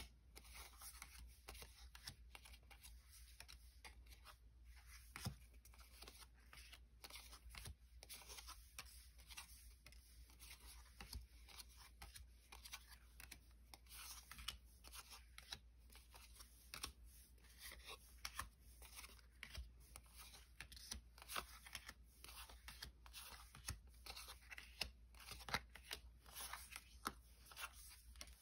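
Pokémon booster packs and trading cards being handled quietly: foil wrappers crinkling and tearing and cards sliding against each other, a string of small irregular scrapes and ticks.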